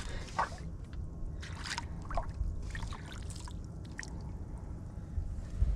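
Water trickling and splashing in a few short bursts over a low, steady background rumble.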